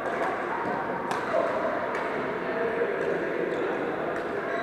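Badminton rackets hitting shuttlecocks, a few sharp strikes, over a steady background of many indistinct voices in a sports hall.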